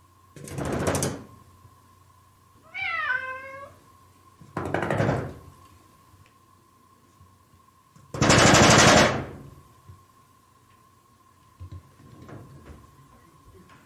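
A cat rattles and bangs a wood-framed glass sliding door three times, each burst under a second long, the third the loudest. It gives one meow about three seconds in, and a faint steady high tone runs underneath.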